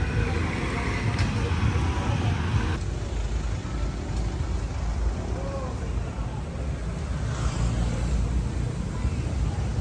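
Street ambience: a steady rumble of passing road traffic with indistinct voices in the background. The sound changes abruptly about three seconds in.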